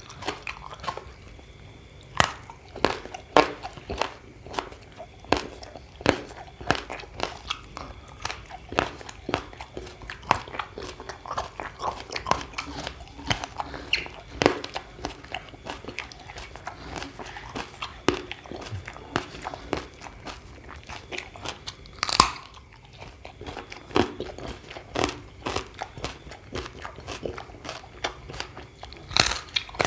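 A person chewing and crunching crisp food close to the microphone: a steady run of irregular bites and crunches, with a couple of louder crunches late on.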